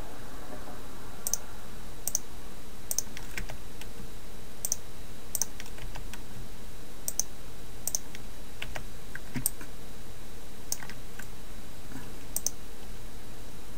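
Computer mouse and keyboard clicks, sharp and single, coming irregularly about once a second over a steady background hiss.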